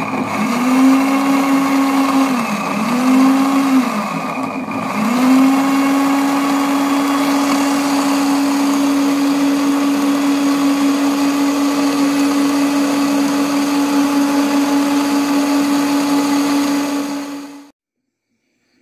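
Electric blender grinding ginger, shallots and garlic. The motor dips in speed and picks up again three times in the first five seconds, then runs steadily and switches off suddenly near the end.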